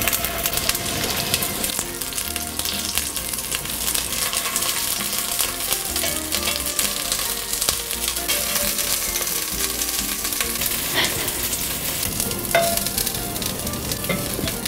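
Meatballs sizzling and crackling steadily as they brown in hot olive oil in a Dutch oven. A couple of sharp clicks near the end come from metal tongs against the pot as they are turned.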